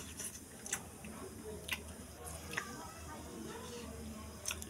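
Pressure cooker heating on a gas burner: a low steady hum with a handful of sharp, irregular ticks and clicks.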